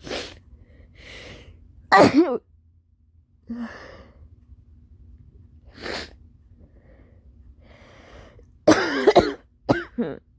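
A person in a hard coughing fit: a cough at the start, a loud cough about two seconds in, smaller coughs around the middle, then a loud run of several coughs near the end, with quieter breaths between them.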